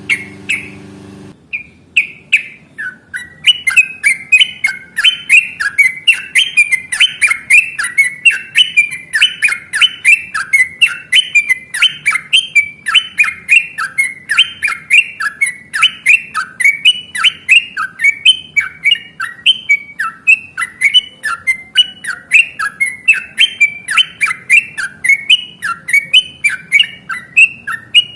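Yellow-vented bulbul (trucukan) song: a long, unbroken run of rapid, bubbly chirping notes, about two to three loud phrases a second, overlapping as if more than one bird is singing. A low hum underneath stops about a second in.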